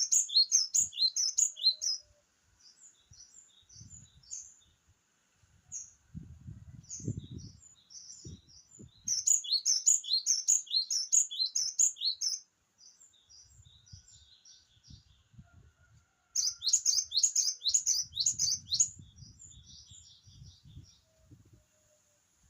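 Cinereous tit (glatik batu) singing: three loud runs of quick, high chirping notes, each lasting two to three seconds, with softer scattered calls between them. Low thumps come and go under the song.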